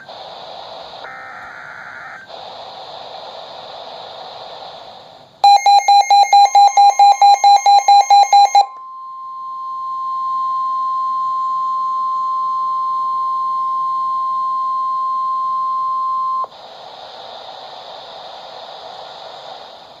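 Weather alert radio sounding an emergency alert: a fast run of loud beeps, about four a second, lasting about three seconds, then the steady NOAA Weather Radio warning alarm tone, which swells up, holds for about six seconds and cuts off. Radio hiss comes before the beeps and after the tone.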